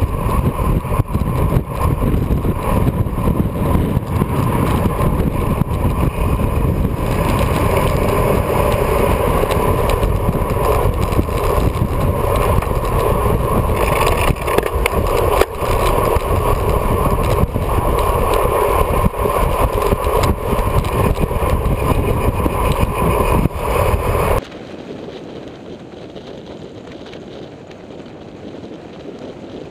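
Loud rush of wind buffeting the microphone of a camera on a road racing bicycle descending at high speed, mixed with road noise from the bike. It drops abruptly to a much softer rush near the end.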